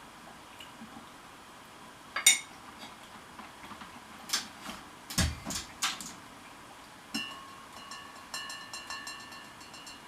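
Scattered sharp clinks and knocks of things being handled, like dishes or glassware, with one heavier thump about five seconds in. From about seven seconds in comes a steady high tone with rapid ticking.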